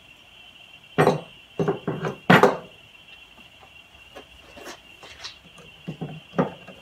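Metal engine parts and a cordless drill being picked up and set down on a workbench: a handful of separate knocks and clunks, the loudest about two and a half seconds in, with lighter ticks after. A faint steady high-pitched whine runs underneath.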